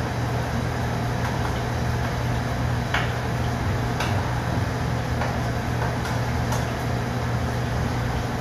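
Commercial kitchen exhaust hood fan running with a steady low hum and rushing noise, with a couple of light clicks of a spoon against a saucepan.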